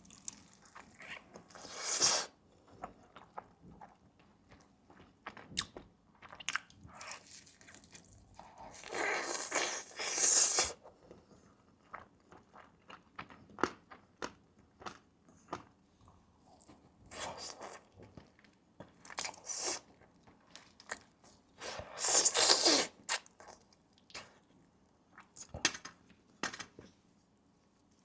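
A person eating close to the microphone: crunching bites and chewing, with a string of small clicks and several louder bursts of crunching, the longest about a third and three quarters of the way through.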